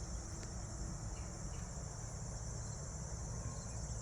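Steady chorus of crickets, a continuous high trill, over a low steady rumble.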